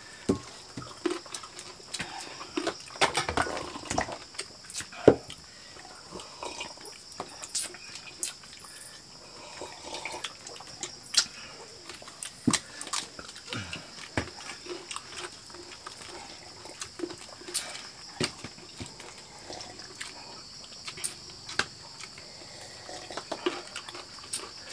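Close-up eating sounds of several people eating fried chicken with their hands: wet chewing, lip smacks and slurps, with scattered small clicks and knocks. A steady high hiss runs underneath.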